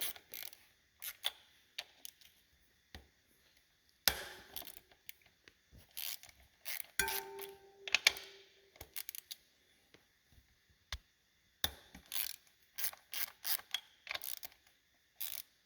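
Wrench and hand tools working on the front-wheel bolts of a motorcycle: a run of irregular sharp metal clicks and knocks, with a brief ringing squeak about halfway through.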